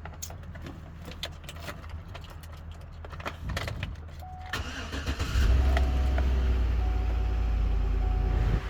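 A 2013 Chevy Avalanche's 5.3-litre V8 being started: a few clicks, a brief crank about three and a half seconds in, then the engine catches about five seconds in and settles into a steady idle.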